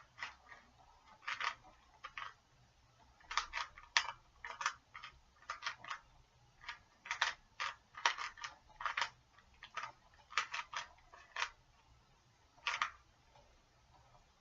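Plastic Rubik's cube being turned by hand: irregular clicks and clacks as the layers snap into place, some single and some in quick runs of two or three.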